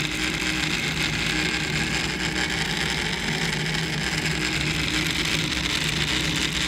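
Creality CR-10 3D printer making a loud, steady grinding buzz instead of printing, with a low hum beneath it: the sign of a fault in this unit.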